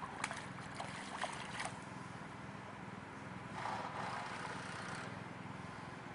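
Stream water running with a few sharp clicks in the first two seconds, then a louder rush of water noise about three and a half seconds in that lasts a second or so.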